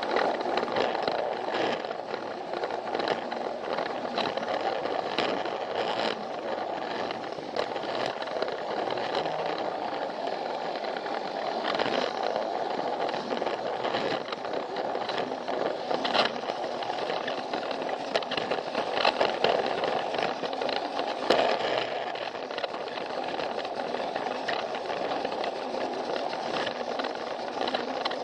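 Plarail toy train running along plastic track: its small battery motor and gears whir steadily while the wheels rattle and click over the rail joints many times.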